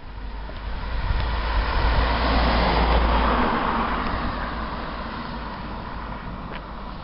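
Road traffic: a car passing on the road, its engine and tyre noise swelling to a peak about two to three seconds in and then fading away.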